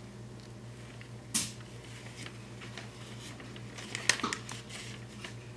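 Fox squirrel feeding at a seed cake held in a wire cage feeder: scattered small crunches and clicks, one sharp click about a second and a half in, and a cluster of louder clicks about four seconds in.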